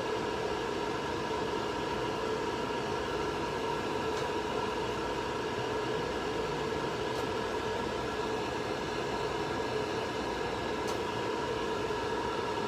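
Hair dryer blowing steadily, a constant rushing whir with a steady hum, used to dry a chinchilla's fur.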